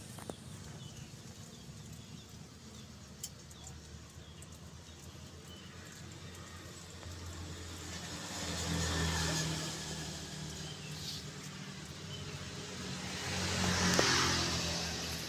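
Motor vehicle engine running outside, swelling twice as if passing, with a broad rush near the end.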